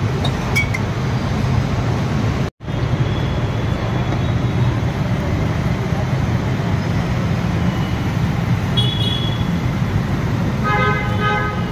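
Steady roadside traffic noise, with a vehicle horn honking near the end. The sound drops out for a split second about two and a half seconds in.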